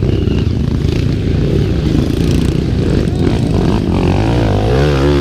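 Dirt-bike engine running hard on a steep climb. From about four seconds in, the revs rise and fall quickly again and again.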